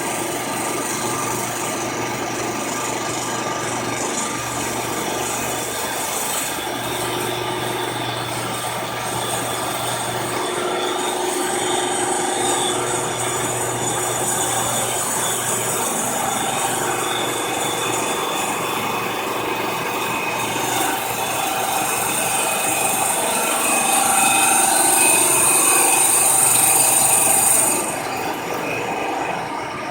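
Milling machine taking a fly-cut across the face of an intake manifold: steady machine running with a cutting hiss that grows louder in the last few seconds and stops suddenly near the end.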